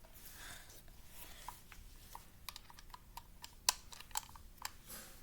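Small clicks and light metallic knocks from a tool turning the CO2 tightening screw in the grip of a CO2 airsoft Glock 19 replica, with one sharp click about three and a half seconds in.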